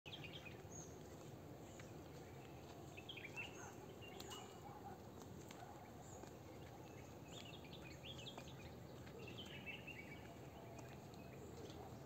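Small birds chirping faintly in short clusters every few seconds over a steady low background hum of outdoor noise, with a few faint clicks.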